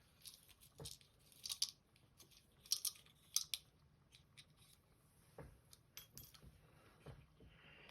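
Small metal tools being picked up, handled and set down on a work surface: a scatter of light clicks and clinks.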